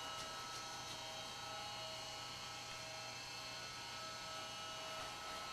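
Steady electrical hum with several faint, constant high-pitched whines; the low part of the hum drops away shortly before the end.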